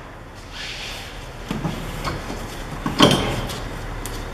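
Handling knocks and rustle from a gloved hand moving the front steering knuckle and its freshly fitted wheel-bearing hub, with a few light knocks and one sharp knock about three seconds in.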